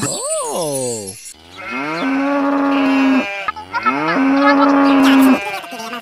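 Cow mooing twice, each moo about two seconds long, the second louder. Just before the moos there is a short call that rises and then falls in pitch.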